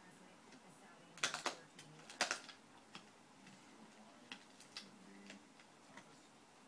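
Dog gnawing on a chew, its teeth clicking and crunching in two short flurries, about a second and two seconds in, then scattered lighter ticks.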